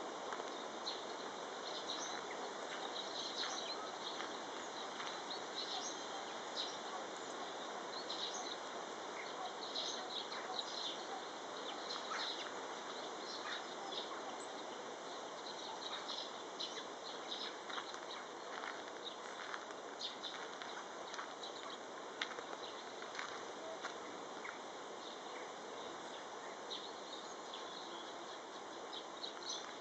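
Small songbirds chirping, many short calls scattered throughout over a steady outdoor hiss.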